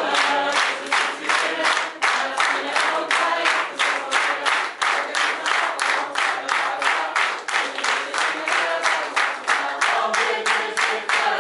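A crowd clapping in a steady rhythm, about three or four claps a second, while a group of voices sings along.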